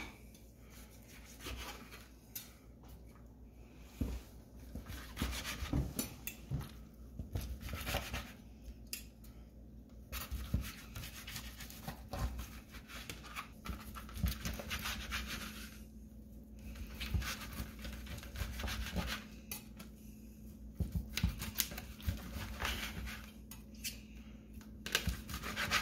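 Chef's knife slicing cooked chicken breast into lengthwise strips on a thin plastic cutting mat, with a fork holding the meat. The blade scrapes and taps the mat in irregular clusters of strokes.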